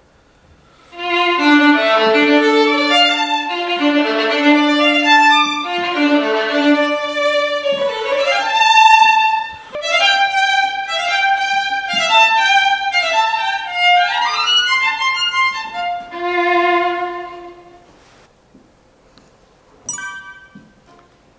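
Solo violin playing a melodic phrase, with pitch slides upward about eight seconds in and again near fourteen seconds, stopping a few seconds before the end. A short sharp click near the end.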